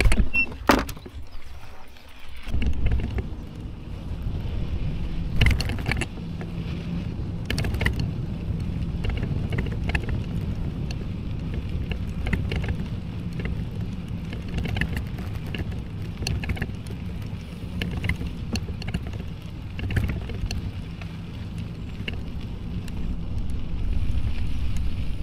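Loaded touring bicycle riding over a sandy, gravelly dirt track: a steady low rumble of tyres on the rough surface and wind on the microphone, with scattered clicks and rattles as the bike goes over bumps. A few sharp knocks come in the first couple of seconds, before the rolling settles in.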